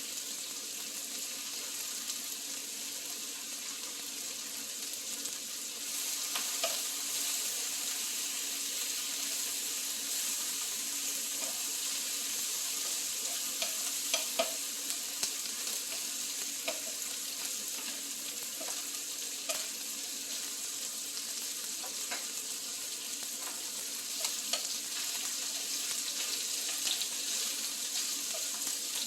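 Duck meat sizzling in a hot pan, a steady frying hiss, with scattered light clicks of utensils against the pan.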